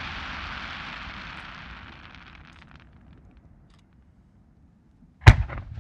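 Fireworks: the crackle and hiss of a fading aerial shell burst dies away over the first two or three seconds. About five seconds in comes a single sharp, loud bang with a short echo, the launch report of the next shell leaving its mortar.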